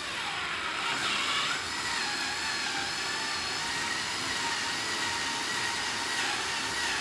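Power drill with a 1/4 inch bit running steadily, drilling out the rivets that hold a golf cart's factory rocker panel; the whine sags slightly in pitch now and then as the bit works through the rivet.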